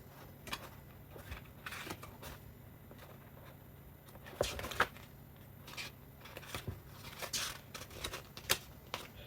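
Scattered light clicks, taps and rustles of packaging and small product containers being handled.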